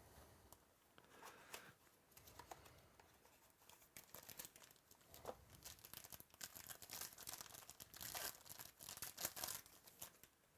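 Faint tearing and crinkling of trading-card packaging as a mini box of cards is opened, a run of papery crackles that gets busier and louder in the second half.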